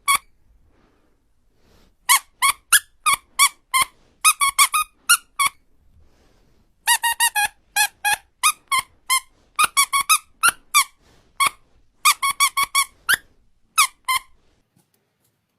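A rapid series of short high squeaks in three runs, each run of about ten squeaks, stopping about fourteen seconds in.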